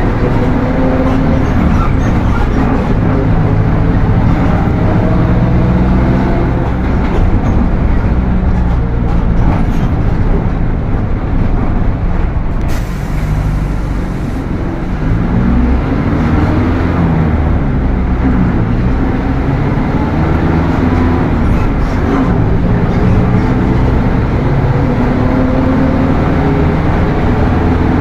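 Mercedes-Benz OF 1721 city bus under way. The diesel engine and a loudly growling transmission rise in pitch and drop back again several times as it pulls through the gears. A short hiss comes about halfway through.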